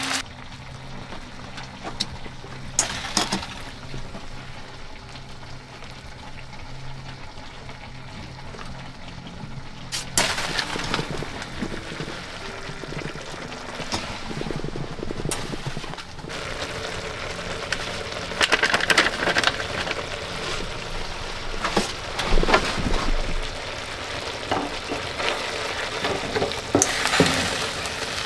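Minced meat frying in a pan, with a sizzle and scattered knocks and scrapes of a utensil stirring it.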